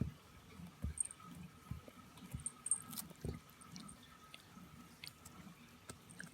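Miniature dachshund chewing a dog chew: irregular wet clicks and smacks, among them short low thumps from its small hiccups.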